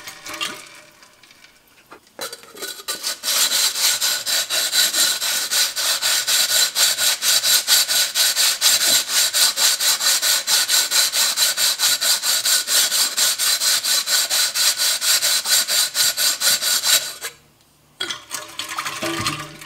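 Wet medium-grit sandpaper rubbed back and forth over the cut rim of a glass bottle, smoothing the sharp edge. Quick, even rubbing strokes start about two seconds in and stop about three seconds before the end.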